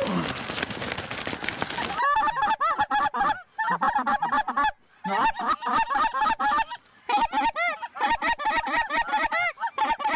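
Geese honking: many short, high honks in rapid succession with a few brief breaks, starting about two seconds in after a stretch of steady hiss.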